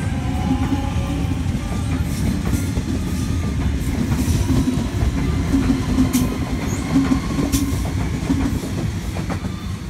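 Sydney Trains A-set Waratah double-deck electric train pulling out along the platform close by: a low rumble with scattered clicks from the wheels over the track. The sound fades near the end as the train draws away.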